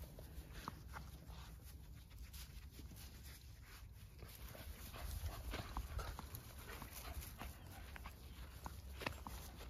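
Whippets moving about close by, with light panting and many small scattered clicks and rustles over a low rumble.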